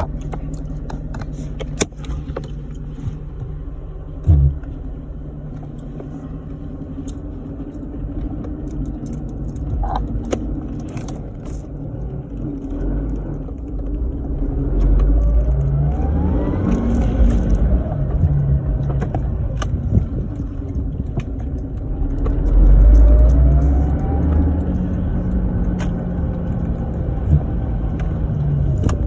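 Supercharged Lexus IS300's 2JZ-GE straight-six pulling under throttle twice, with the centrifugal supercharger's whine rising with revs each time. Between pulls, the HKS SSQV blow-off valve vents with its fin insert removed, giving a deeper sound.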